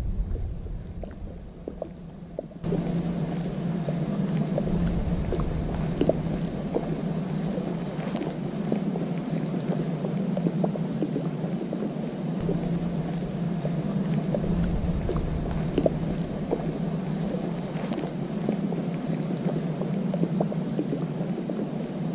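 Fishing reel being cranked steadily on a retrieve, a continuous whir with fine rapid ticking, starting about three seconds in, while gusts of wind rumble on the microphone.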